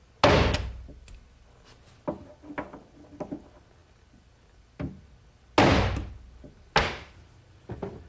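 Metal corner chisel being struck to square the corners of a router-cut hinge mortise in mesquite: three loud, sharp knocks, one at the start and two near the end, with lighter taps and knocks between.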